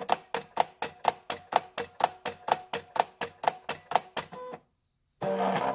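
Silhouette Portrait 2 cutting machine clicking repeatedly as it adjusts its AutoBlade to the depth set for glossy vinyl, about two clicks a second. The clicks stop about four and a half seconds in, and after a short silence a different steady sound starts.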